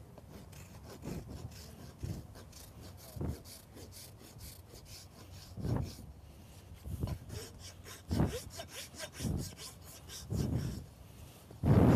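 Farrier's hoof rasp filing a horse's hoof wall in quick, rapid scraping strokes. Several dull low knocks come in between, the loudest just before the end.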